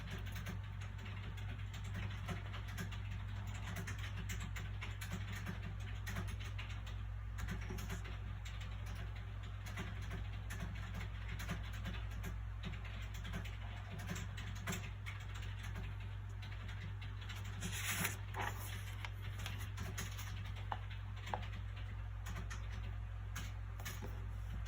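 Soft paper sounds from a book being handled, with many small light clicks and rustles and one louder rustle about three-quarters of the way through, over a steady low background hum.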